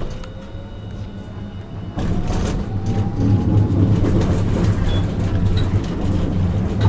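Hiroden Green Mover LEX 1000-series low-floor tram pulling away: its traction motors give a rising whine as it picks up speed. About two seconds in, the running noise grows louder with a steady low hum.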